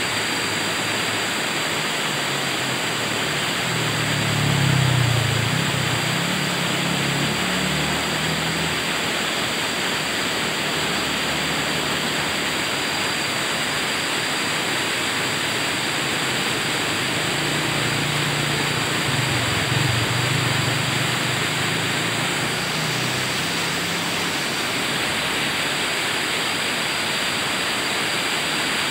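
Shallow rocky river rushing steadily as it breaks white over boulders in small rapids. A low rumble swells under it twice, about four seconds in and again around eighteen seconds in.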